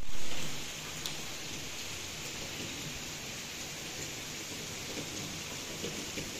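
Steady rain falling, an even hiss of many drops. It starts abruptly and is louder for the first half second before settling.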